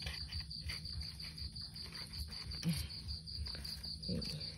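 Crickets chirping in a steady, rapid pulsing trill, with light rustling and handling of leaves and potting soil close by.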